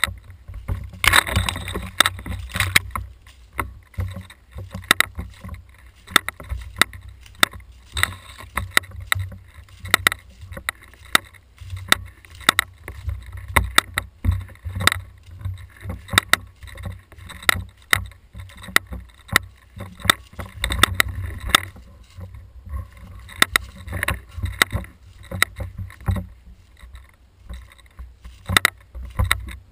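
Knocking, rattling and rubbing from a camera mounted on an airsoft rifle as it is carried through the woods, with irregular clicks and a constant low rumble, mixed with footsteps in leaf litter.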